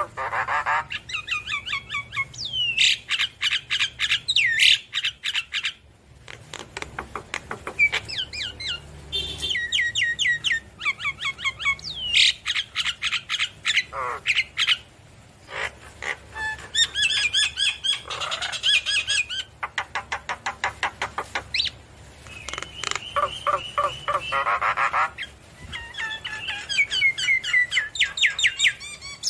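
Javan myna singing a long run of rapid, harsh chattering and clicking phrases mixed with whistled, sliding notes, broken by several short pauses: the full song of an excited male in display.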